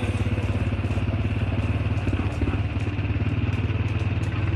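A motor vehicle's engine running steadily at low speed, with a fast, even chugging.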